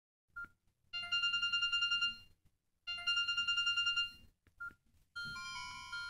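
Samsung GT-E1270 phone playing previews of its built-in ringtones through its small speaker as the menu is scrolled. A short key beep comes first, then a fast twinkling run of high electronic notes plays twice, cut off each time. A short beep follows, and a different tune of slower, held chime notes starts about five seconds in.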